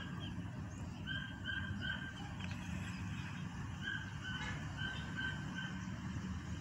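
A bird calling in short flat notes, about three a second: a run of three near the start and a run of six in the second half. A steady low rumble runs underneath.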